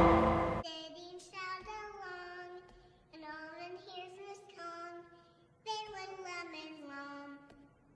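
A loud musical sting cuts off within the first second, then a toddler sings a wordless little tune in three short phrases.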